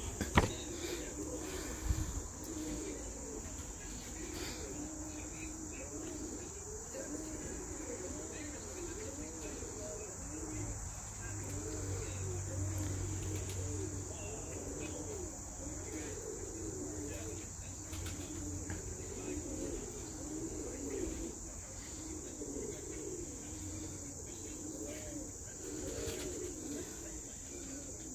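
A steady, high-pitched insect chorus like crickets, over pigeons cooing in repeated low, rising-and-falling phrases. A low hum swells about ten seconds in and fades a few seconds later.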